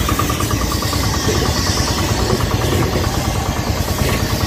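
Pressure-washer machine running steadily, with a fast, even pulsing over a low rumble and the hiss of water spray.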